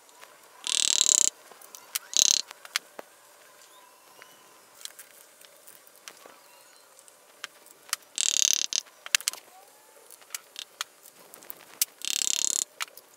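Forged pistons on their rods being fitted into a Mazda BP engine block's bores through a piston ring compressor and tapped down with a hammer handle: scattered light metallic taps and clicks. Three short, harsh noises of about half a second each come about a second in, about eight seconds in and near the end.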